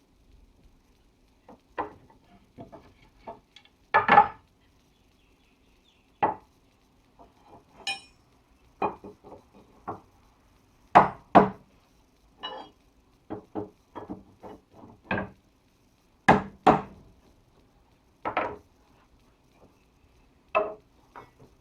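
Forged holdfast being struck into and knocked loose from a hole in a wooden bench: irregular wooden knocks and taps, with a few sharp, loud strikes among lighter ones.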